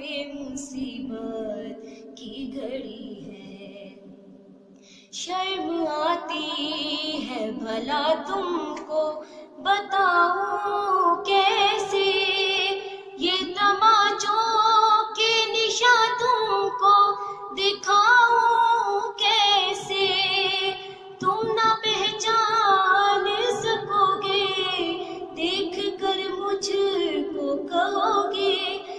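A woman's voice reciting an Urdu noha, a mourning lament, into a handheld microphone, in long drawn-out melodic lines. The voice sinks low for a few seconds near the start, then comes back strongly about five seconds in.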